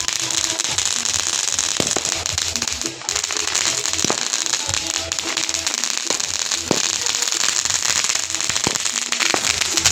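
Fireworks and firecrackers going off in a dense, continuous crackle, with several sharper bangs standing out.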